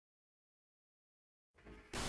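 Digital silence, dead quiet, with a faint low noise coming in near the end.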